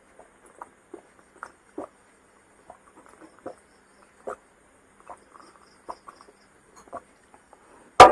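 A person chewing food with the mouth close to the microphone: soft, irregular wet clicks and lip smacks about once or twice a second, with one sharp, louder smack near the end.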